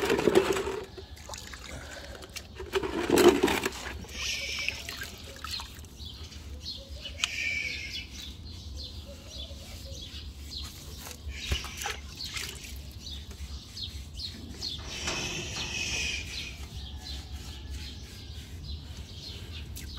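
Water sloshing and splashing in a plastic bucket as a sponge is dunked in, loudest at the start and about three seconds in, then water trickling and dripping as the horse is sponged down.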